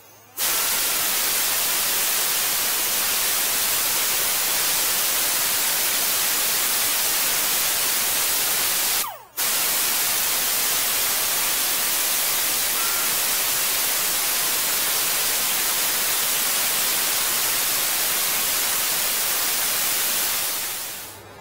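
Die grinder running a surface-conditioning 'cookie' disc against metal, cleaning the steering knuckle's mounting surfaces for the new wheel bearing assembly. A loud, steady hiss that cuts off briefly about nine seconds in, starts again, and fades out near the end.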